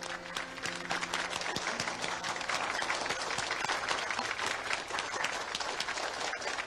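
A group of people applauding: many hands clapping together.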